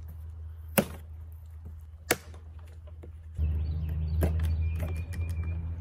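Two sharp cracks a little over a second apart as pieces of a C5 Corvette's plastic dashboard are snapped off by hand along the saw cuts. A louder low steady rumble comes in just past halfway.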